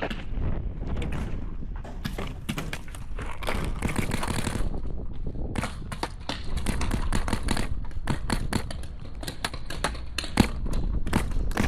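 Paintball markers firing: scattered shots, then fast volleys of shots from about halfway through, the loudest a little before the end. Steady wind rumble on the microphone underneath.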